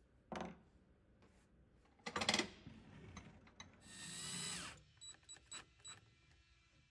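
Cordless drill driving screws into a brass hinge in short bursts. A loud rattling burst is followed by a run of about a second whose pitch falls as it stops, then a few sharp clicks.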